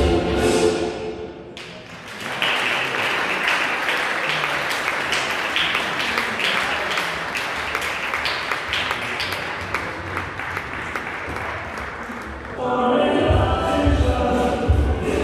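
Paso doble music ends about a second and a half in. The audience then applauds for about ten seconds, and jive music with a heavy beat starts near the end.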